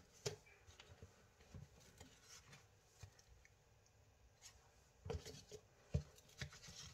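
Faint handling sounds of cardboard jigsaw puzzle boards being lifted out of their box and laid on a wooden table: a few soft taps and scrapes, with a cluster of knocks about five to six seconds in.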